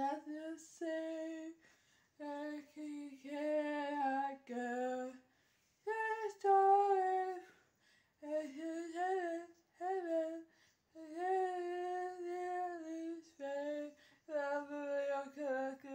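A female voice singing unaccompanied, holding and bending high notes in short phrases with brief pauses between them.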